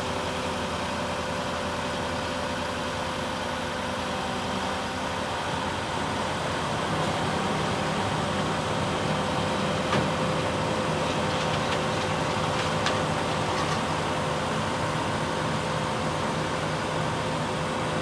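Diesel engine of an ASV RT-120F tracked skid steer running steadily as the machine moves off the trailer deck. It gets slightly louder about seven seconds in, with a couple of light knocks.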